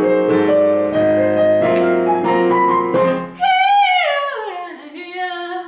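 Electric piano playing sustained jazz accompaniment chords, changing about a second in, near two seconds and near three seconds. It then stops, and a woman's voice slides down in pitch through one long falling sung phrase.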